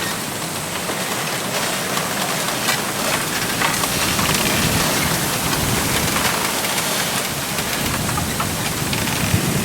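Wind blowing steadily through a bamboo grove, its leaves and stalks rustling and rubbing together, with scattered faint clicks.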